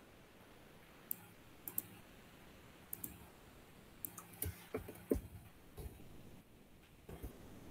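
Computer mouse clicks and keyboard typing: a few scattered single clicks, then a quicker run of keystrokes about halfway through.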